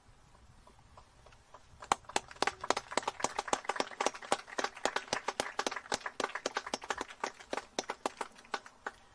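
A small crowd applauding, the individual claps distinct, starting about two seconds in and thinning out near the end.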